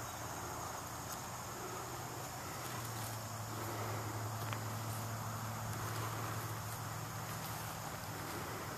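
Insects, crickets among them, chirping in a steady chorus, with a low steady hum beneath.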